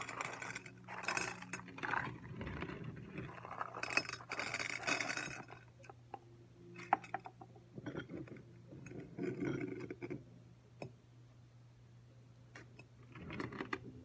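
Small garden rocks being dropped and poured into frosted glass lampshade planters, rattling and clinking against the glass: a few seconds of dense clatter, then scattered single clinks.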